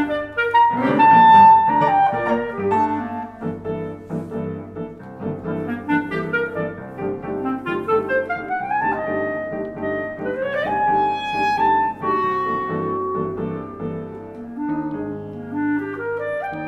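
Clarinet playing a classical solo with quick rising runs, over a piano accompaniment that holds low notes and chords underneath.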